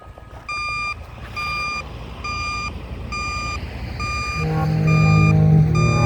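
Vehicle reversing alarm beeping in an even rhythm, a bit more than one beep a second. About two-thirds of the way through, a louder low hum comes in under the beeps.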